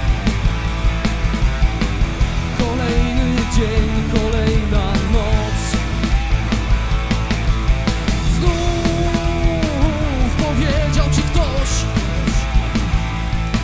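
Live rock band playing: electric guitars, bass guitar and drum kit with a steady beat, and a man singing over them.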